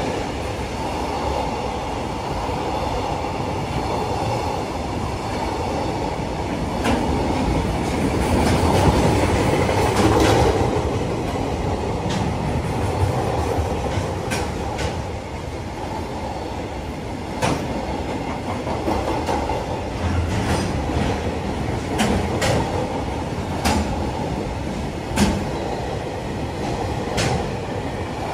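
Freight train of container flatcars passing at speed: a steady rumble of wheels on rail, with sharp clacks every second or two as wheelsets cross rail joints.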